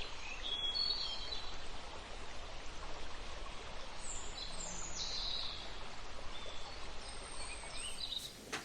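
Steady ocean surf hiss with birds chirping over it, a few short high calls and glides, fading out just before the end.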